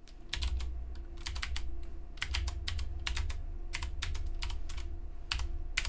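Typing on a computer keyboard: about twenty irregularly spaced keystroke clicks as a login password is entered, over a low steady hum.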